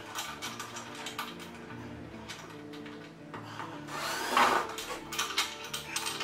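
Cordless drill-driver driving screws into the bench's seat and backrest mounts in short runs, the longest and loudest about four seconds in, with clicks of metal parts being handled.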